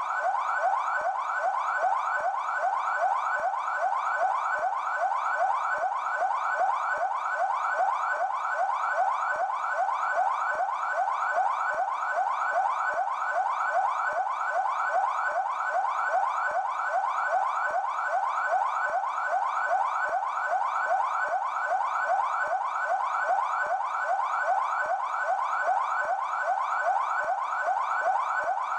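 Police siren of the São Paulo Military Police (PMESP) sounding its yelp tone: a fast, unbroken run of rising sweeps repeating at a steady level.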